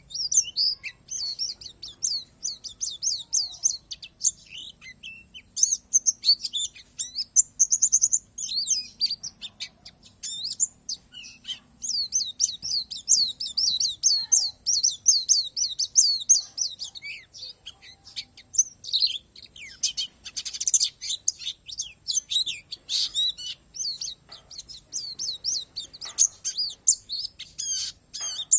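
Pleci palas Borneo white-eye singing a fast, near-continuous twittering song of high, quick chirps and trills, with short pauses.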